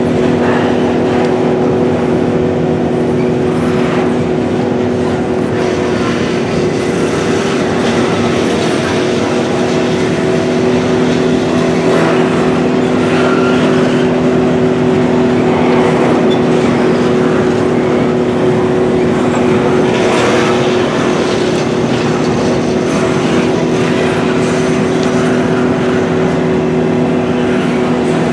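Double-stack intermodal container well cars rolling past at speed: a steady, loud rumble of steel wheels on rail with a steady hum, and faint clacks every second or two as wheels cross rail joints.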